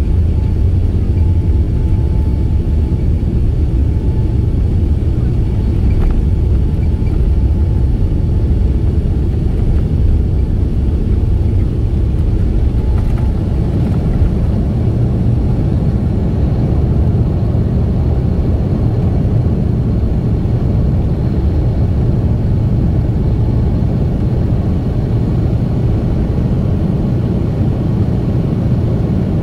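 Jet airliner's engines at takeoff power heard from inside the cabin: a loud, steady low rumble through the takeoff roll and climb-out.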